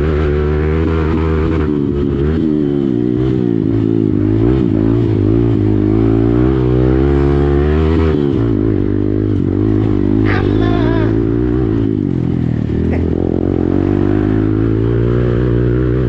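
Hero Xpulse single-cylinder motorcycle engine running through an aftermarket Akrapovic exhaust, its note rising and falling as the throttle is worked, then running steadier from about eight seconds in.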